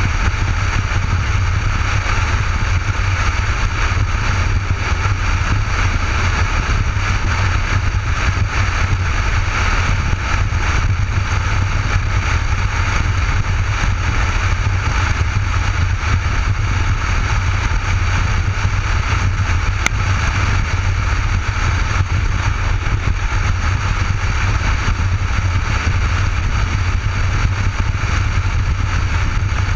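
Cruiser motorcycle riding at a steady road speed, its engine running under a wind rush, heard from a helmet-mounted camera. An even, unchanging roar with no revving or gear changes.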